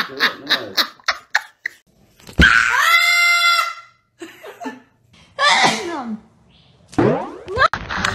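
A woman laughing in quick, even bursts. Then a parrot gives a loud, harsh scream lasting over a second, followed by two shorter calls, one falling and one rising in pitch.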